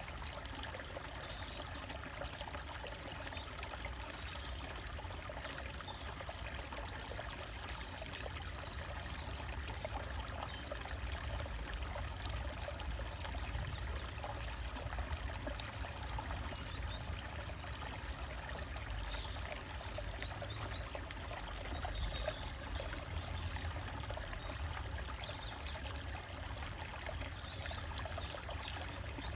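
Small stream trickling and splashing over rocks, with a steady low rumble of running water. Faint bird chirps come now and then.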